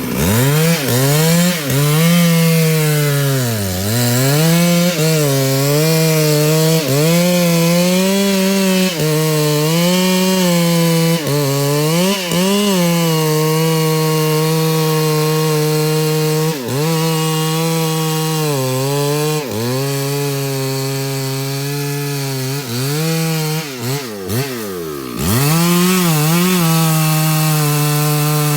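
Two-stroke chainsaw running at high revs and cutting wood, its engine pitch dipping repeatedly as the chain bites and picking back up between cuts. Near the end the revs fall away sharply, almost to idle, then rise again.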